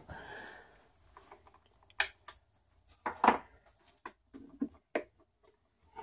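A handful of light knocks and clicks, spread out with pauses between them, from handling a wooden box as its lid is lifted open.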